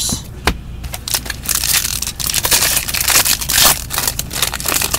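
Foil trading-card pack wrapper crinkling and crackling as gloved hands handle it, in a dense run of short crackles.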